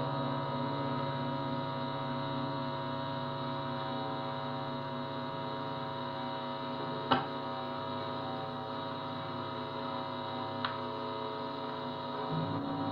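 Steady mains hum and buzz from an electric guitar's amplified, distorted rig while the strings are not being played, with one sharp click about seven seconds in and a faint one near the end.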